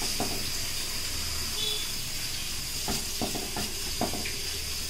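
Metal spoon stirring and scraping dry-roasting spice masala in a small pan, in short strokes that bunch together in the second half, over a steady hiss.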